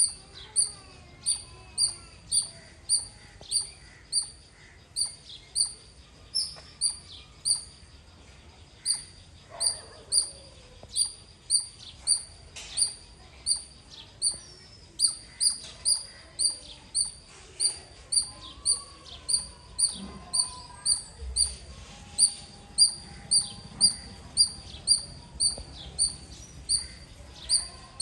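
Squirrel calling, a long run of short, sharp, high chirps repeated evenly a little under two a second, with a brief pause about seven seconds in.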